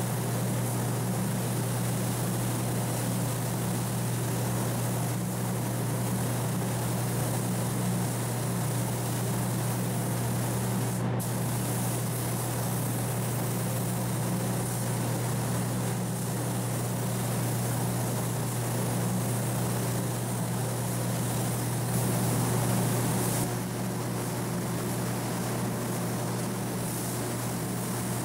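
Compressed-air spray gun with a gravity-feed cup spraying etch primer onto bare steel: a steady hiss of air and atomised paint over a constant low drone. The sound steps down slightly about 23 seconds in.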